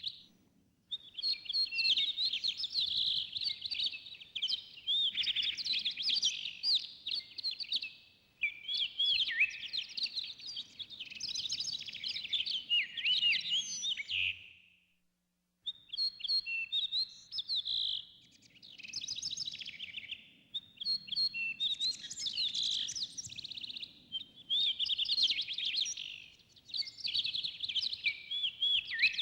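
Several songbirds singing, their quick chirps and warbling phrases overlapping in stretches of a few seconds with short pauses. The song breaks off for about a second around halfway through.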